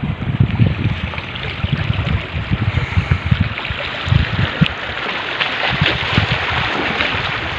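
Wind buffeting the microphone in irregular low thumps, which ease after about five seconds, over a steady rush of small waves washing at the shore.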